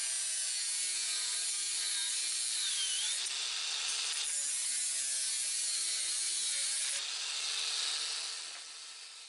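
Angle grinder with a thin cutoff wheel cutting through corrugated stainless steel flex pipe: a steady high grinding hiss, the motor's pitch wavering as it works under load. The sound fades away over the last couple of seconds as the cut finishes and the grinder winds down.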